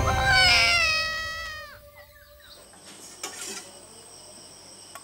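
A long, high wailing cry that slides down in pitch and breaks off about two and a half seconds in. After it there is only low background noise with a faint knock.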